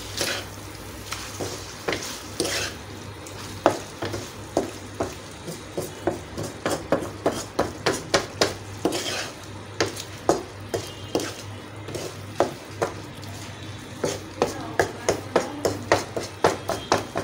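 Mutton liver and kidney pieces sizzling in a black karahi over high flame, while a wooden spoon stirs them, scraping and knocking against the pan. The knocks are scattered at first and come about two or three a second from about four seconds in.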